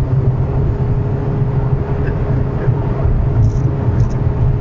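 Steady drone of a car at high speed, heard from inside the cabin: a continuous engine note over road and wind noise while the car accelerates through about 160 to 170 km/h.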